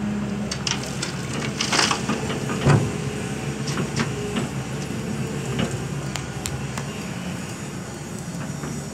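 Hyundai crawler excavator's diesel engine running steadily as it swings and empties a bucket of earth into a steel dump-truck bed. Rocks and soil thud into the bed about two to three seconds in, the loudest knock near the middle.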